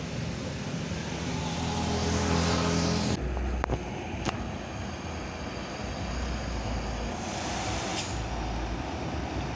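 A heavy road vehicle's engine running as it passes close, growing louder over the first three seconds. Then the sound changes abruptly to steady traffic noise with a couple of sharp clicks.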